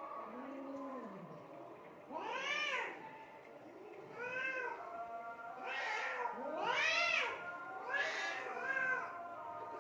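Domestic cats yowling at each other in a fight standoff: a string of drawn-out calls that rise and fall in pitch, a low growling one near the start and then higher ones about every second, some overlapping.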